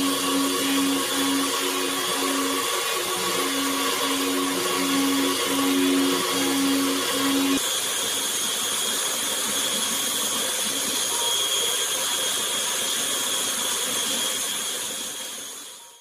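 CNC milling machine's spindle and end mill cutting a black nylon block, a steady whine over cutting noise. In the first half a low tone pulses about twice a second as the cutter works the pass; about halfway through the sound changes, and it fades out at the end.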